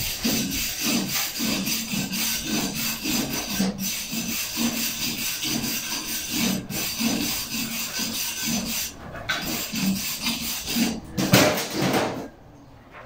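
Steel chipping hammer scraping and chipping slag off a freshly laid stick-weld bead on a steel plate, in quick repeated strokes about two to three a second. There is a louder knock about eleven seconds in.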